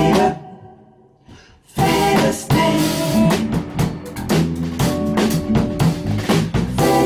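Live band of acoustic guitar, electric bass and drum kit playing. An opening hit rings out and fades, then a little under two seconds in the full band comes in with a steady drum beat under the guitar and bass.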